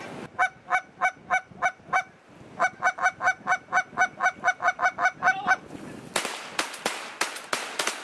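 Goose call blown in runs of short, evenly spaced clucks: about three a second, then a faster run of about five a second. About six seconds in comes a rapid volley of shotgun shots, roughly seven in quick succession, as the geese come in over the decoys.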